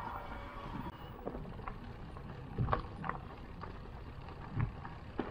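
E-mountain bike rolling over a trail: a steady low rumble of tyres and wind, with scattered clicks and knocks from the bike rattling over bumps.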